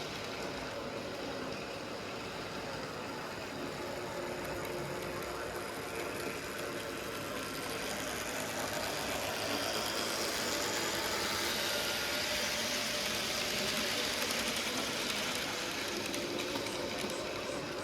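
OO-gauge model locomotive running on the track, a steady mechanical whirr that grows louder in the middle as it comes nearer and then eases off.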